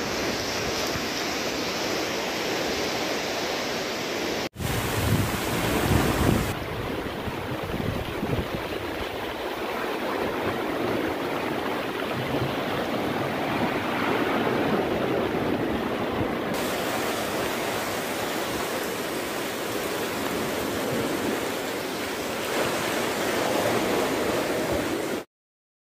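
Wind blowing hard on the microphone over rough, choppy sea waves: a steady rushing noise that cuts out for an instant about four and a half seconds in and stops abruptly near the end.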